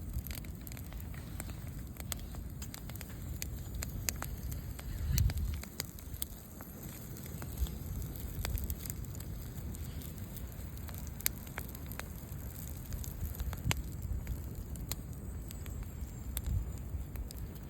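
Bonfire burning, crackling, with irregular sharp pops over a steady low rumble that swells briefly about five seconds in.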